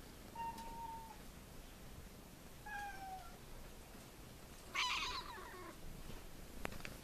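Siamese kittens meowing three times: two thin, high mews about two seconds apart, then a louder, fuller meow about five seconds in. A sharp click comes just before the end.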